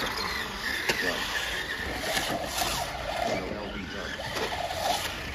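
Electric RC rally cars running on a dirt track, their motors whining steadily, with a sharp click about a second in.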